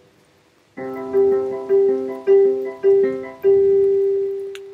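Keyboard instrument played by hand: a short pause, then a chord, a run of notes struck about every half second, and a last note held and left to fade.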